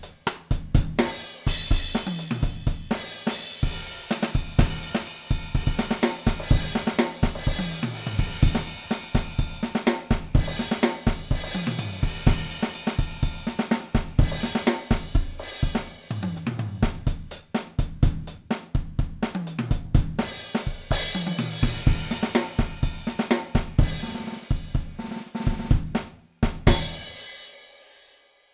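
Music driven by a fast drum-kit beat, with snare, cymbals and bass drum. It stops with a last hit about two seconds before the end and rings out to silence.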